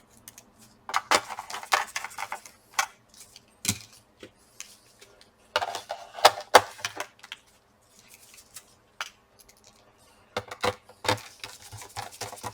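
Irregular clicks, taps and light clatter of plastic and metal laptop parts being handled and fitted during reassembly. The clicks come in clusters about a second in, around six seconds, and again from about ten seconds, with quiet gaps between.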